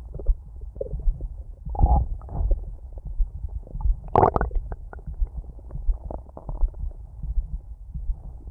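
Stomach growling: an irregular run of gurgles and low rumbles, with two louder gurgles about two seconds and four seconds in.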